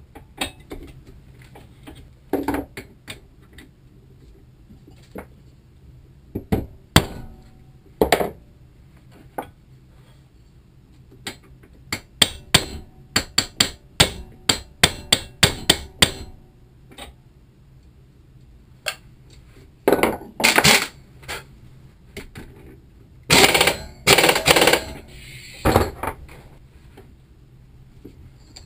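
Hammer striking a steel gearbox shaft clamped in a bench vise: scattered single blows, then a quick run of sharp strikes about four a second. Near the end, a handheld power tool set on the shaft runs in several short bursts.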